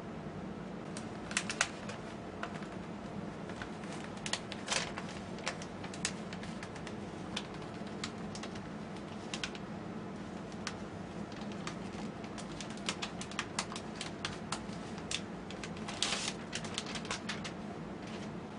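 A sheet of magazine paper handled and pressed onto a spray painting: scattered crisp clicks and crackles of paper, with a denser flurry near the end, over a steady low hum.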